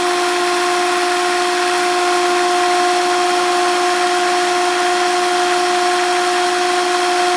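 Zitrek cordless drill running at high speed with a steady whine, its chuck spinning a small permanent-magnet motor from a citrus juicer that is being driven as a generator.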